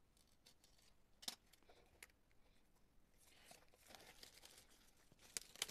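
Faint rustling and crinkling of a Royal Talens Bristol paper pad being handled, with a few light clicks.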